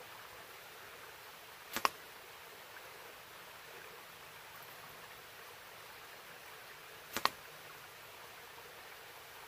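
Two Cold Steel .625 magnum blowgun shots about five seconds apart, each a short puff of breath followed a split second later by a sharp smack as the dart strikes the tree trunk.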